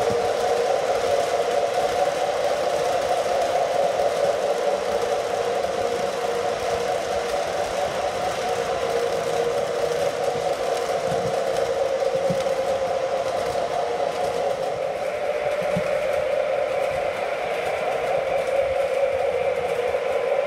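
O scale model train running on three-rail track, its freight cars rolling past: a steady rumbling hum with a few faint clicks.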